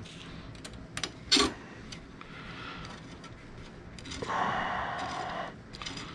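Small hardware clicking and clattering as screws and printer parts are handled during assembly: two sharp clicks about a second in, then about a second of rustling.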